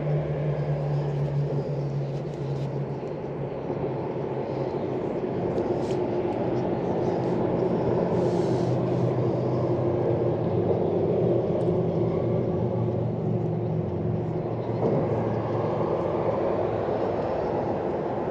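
A steady engine drone, its low hum slowly sinking in pitch, over a constant rushing noise.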